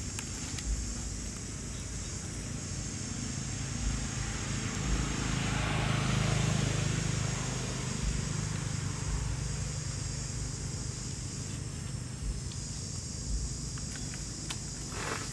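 Outdoor ambience: a low engine rumble swells to a peak about halfway through and fades, as of a vehicle passing at a distance, over a steady high insect drone. A few light clicks and rustles near the end.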